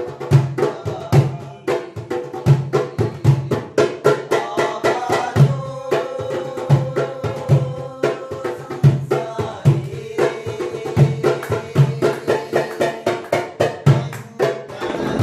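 Darabuka hand drumming a fast, steady rhythm: deep bass strokes about twice a second with many quick, sharp taps between them, over a backing track carrying a sustained melody.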